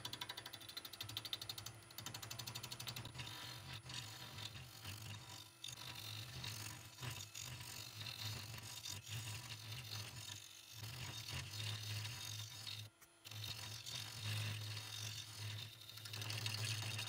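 Turning tool cutting a spinning epoxy-resin and wood blank on a wood lathe: a fast, rattling run of ticks over the lathe's low hum, breaking off briefly a few times as the tool comes off the work.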